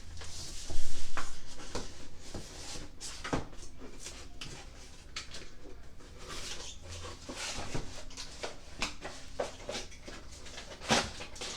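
Handling noises: scattered clicks, taps and knocks, with a loud bump about a second in and another sharp knock near the end, as PC parts in their packaging are set down and picked up.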